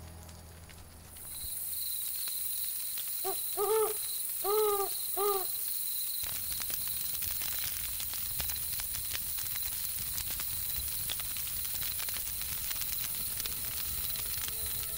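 Night ambience: an owl hooting about four times in quick succession over a steady, evenly pulsing chirr of crickets. From about halfway, a campfire crackles and rumbles softly underneath.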